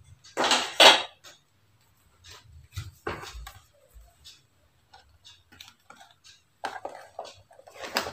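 Clatter of kitchenware and plastic food containers being handled: two loud clattering bursts about half a second in, scattered knocks, then more clatter near the end as a plastic lid is pressed onto a lunch box.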